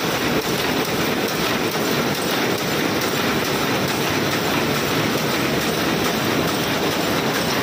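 Double-width rapier loom running at speed, a steady dense mechanical clatter from its weaving strokes.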